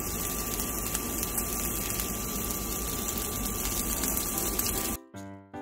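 Steady rushing hiss with a faint steady high whine, which cuts off abruptly about five seconds in as piano-like keyboard music starts.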